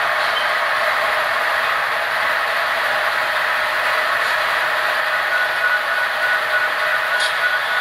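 HO scale model double-stack container train running on the layout's track: a steady whirring rattle of wheels on the rails. A faint steady whine joins about five seconds in.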